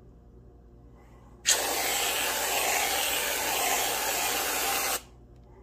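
A steady hiss of rushing air or spray, starting abruptly about a second and a half in and cutting off sharply about three and a half seconds later.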